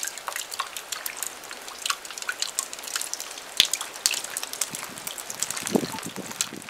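Water dripping: scattered, irregular light taps of drops falling on wet surfaces.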